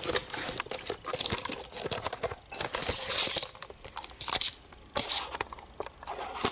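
Cardboard advent calendar rustling and crinkling in irregular bursts, with small clicks and scrapes, as a small toy car is worked out of its compartment.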